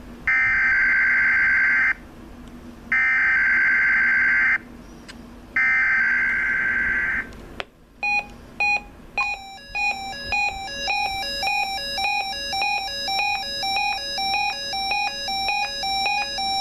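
NOAA Weather Radio SAME header for KIH-20's Required Weekly Test: three identical screeching digital data bursts, each about a second and a half long. About a second after the last burst, the two-way radio's weather alert starts beeping, about two short beeps a second.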